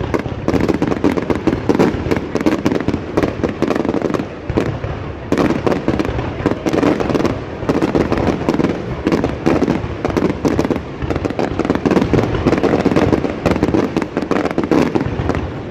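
Fireworks display: a dense, continuous barrage of rapid bangs, pops and crackling from shells and spark fountains, many reports a second without a pause.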